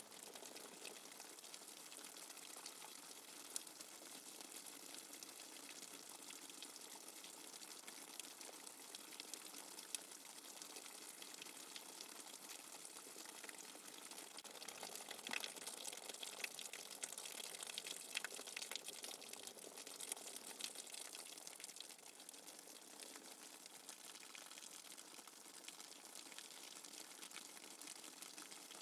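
Soft steady rain without thunder, a dense patter of drops that grows a little heavier for several seconds in the middle.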